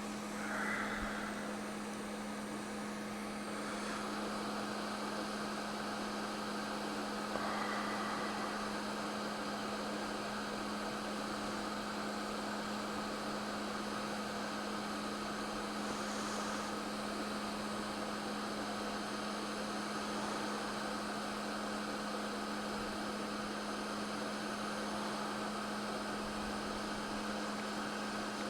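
Hot air rework station running, a steady hum with a constant airflow hiss, as it warms the board.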